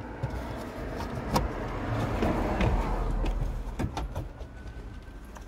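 Low rumble that swells in the middle and fades near the end, with a few sharp clicks from hands working at the rear fuse box and its wiring.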